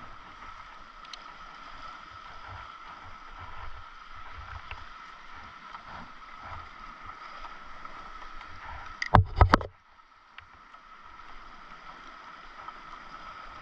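Steady wash of water and wind around a paddleboard afloat, with a quick cluster of loud knocks about nine seconds in as gear is handled on the board.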